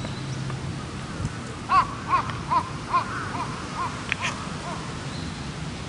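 A crow cawing in a quick run of about eight calls, a little under half a second apart, growing fainter as it goes, over a steady outdoor background noise.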